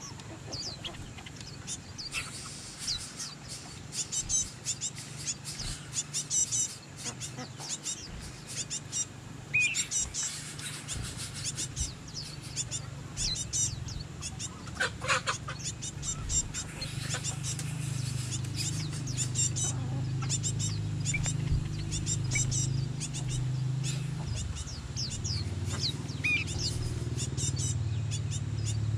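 Birds chirping with many short, high calls, and chickens calling now and then. A low steady hum grows stronger from about halfway through.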